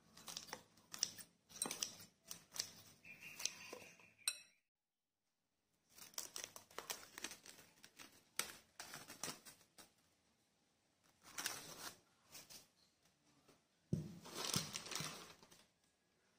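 Plastic cling film crinkling and rustling in bursts as it is stretched and pressed over a glass bowl, broken by about a second of silence partway through.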